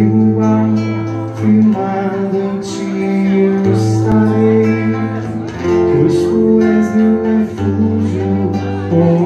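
Live amplified music: an acoustic-electric guitar strummed under a man singing into a microphone, with long held low notes underneath.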